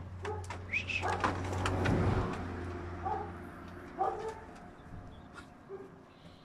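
Dogs giving several short barks and yelps, over a low noise that swells to its loudest about two seconds in and then fades.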